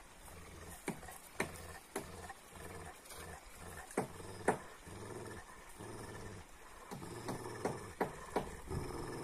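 Dog growling low, with about eight short, sharp sounds through it; the loudest two come around four seconds in.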